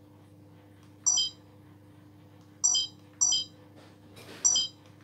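Short, high electronic beeps, four of them at uneven intervals, with a brief hiss just before the last one, over a faint steady hum.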